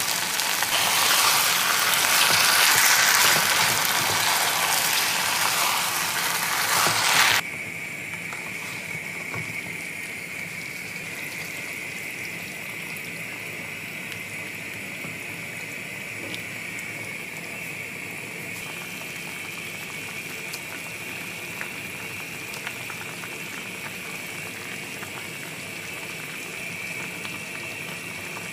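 Pot of yukgaejang (Korean spicy beef stew) cooking over high heat. A loud hissing rush for about the first seven seconds cuts off suddenly, followed by a quieter, steady bubbling hiss of the stew boiling.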